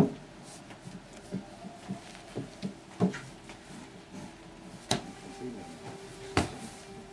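Wooden knocks and taps from a long wooden rolling pin rolling out lavash dough on a round wooden board, with soft handling noise between. The loudest knock comes right at the start, then three more spread a second or two apart.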